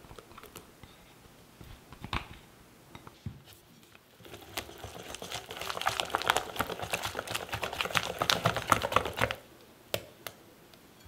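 Whisk beating thick chocolate cake batter in a glass bowl: a fast run of wet, clicking strokes from about four seconds in until about nine seconds, after a quieter start with a few light knocks.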